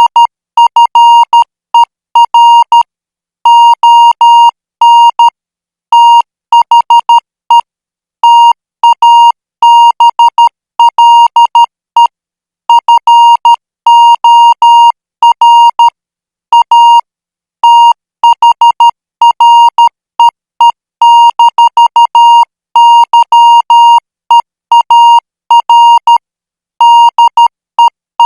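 Morse code practice signal at 12 words per minute: a single-pitched electronic beep keyed on and off in dots and dashes, sent in groups separated by short pauses.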